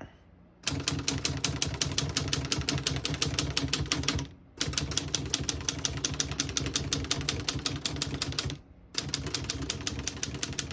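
1923 L.C. Smith No. 8 manual desktop typewriter being typed on: a fast, even run of keystrokes clacking, with two short pauses, about four and about eight and a half seconds in.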